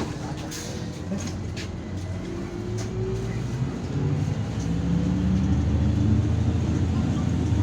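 Irisbus Citelis 12M city bus pulling away, heard from inside. The engine and drivetrain drone rises slowly in pitch and grows louder as the bus gathers speed, with a few sharp clicks and rattles in the first couple of seconds.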